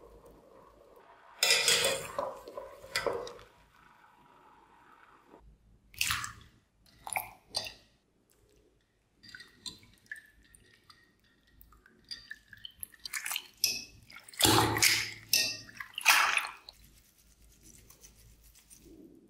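Blanched potato wedges being swished by hand in a metal mesh strainer set in a bowl of water: separate bursts of splashing, dripping and soft squishing with short quiet gaps, and water running off as the strainer is lifted out.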